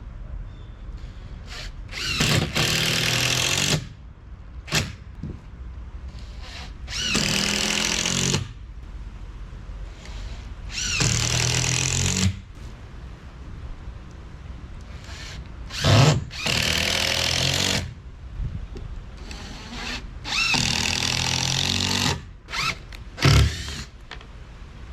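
Power drill or driver running in repeated short runs of a second or two each, about five times, with a couple of quick trigger blips: driving fasteners while assembling the wooden shed base boards.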